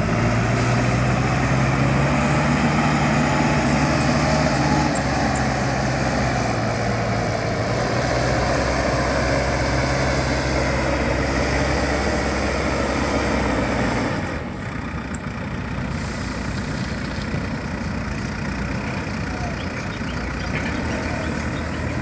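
Diesel engine of an ACE backhoe loader running steadily under load as the machine works with its front loader bucket. Its engine tone weakens and the overall level drops about two-thirds of the way through.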